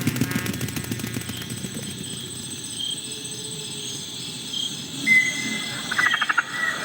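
Insect ambience of crickets chirping: steady high-pitched trilling with fine rapid ticking, a short whistle-like tone about five seconds in, and a quick run of clicks near the end.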